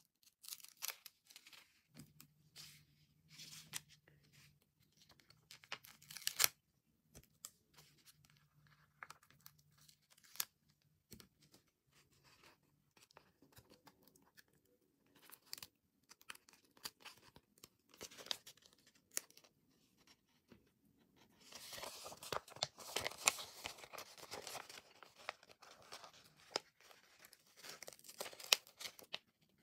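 Stickers being peeled by hand off their backing sheet: scattered short crackling peels and paper rustles, with a denser run of peeling about three quarters of the way through.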